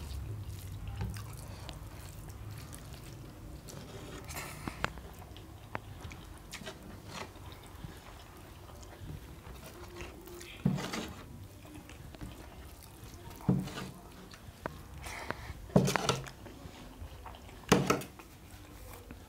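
Eating sounds: wet squishing and chewing as rice and curry are mixed by hand and eaten, with a steel spoon scraping and knocking against a steel bowl a few times in the second half.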